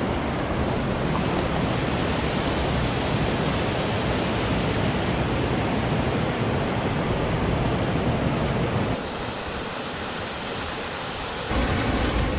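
Rushing white water of a river rapid, a loud, steady rush of water. About nine seconds in it turns quieter and thinner, then returns at full strength near the end.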